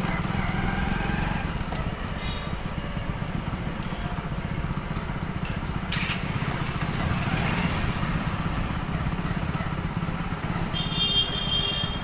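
Motorcycle or scooter engine running with steady low road rumble, heard from a moving two-wheeler. A sharp click comes about halfway through, and a brief high-pitched tone near the end.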